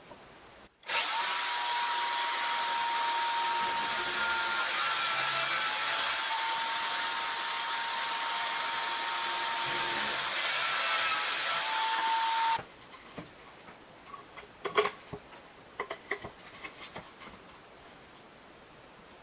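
Electric drill running at a steady speed with a high whine, starting about a second in and stopping suddenly about twelve seconds later, followed by a few light clicks and knocks.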